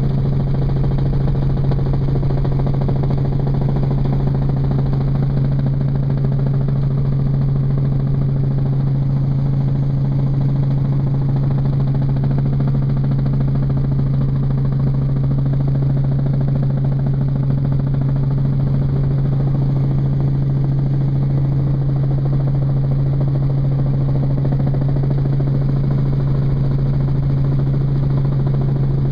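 Robinson R44 Raven II helicopter in cruise flight, heard from inside the cabin. Its six-cylinder piston engine and rotors make a loud, steady drone with a strong low hum that doesn't change.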